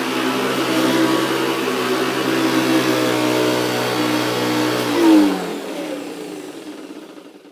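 Hoover Professional Series CH520 upright vacuum cleaner running steadily, then switched off about five seconds in. Its motor winds down with a falling pitch and fades away.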